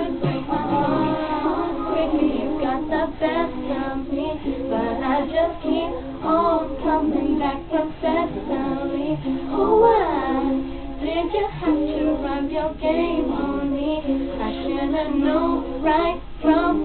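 A female voice singing, with music playing behind it.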